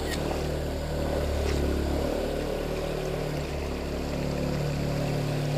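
Distant vehicle engine running, a steady low drone that seems to come closer and then go further away, over the flow of a shallow rocky creek.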